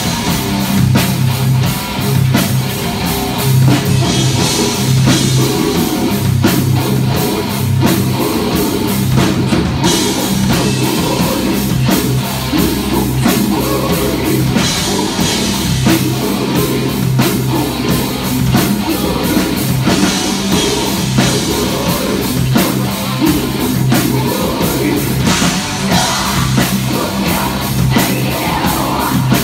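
Live extreme metal band playing loud: distorted electric guitar, bass guitar and a drum kit struck in a dense, fast pattern. The passage is mostly instrumental.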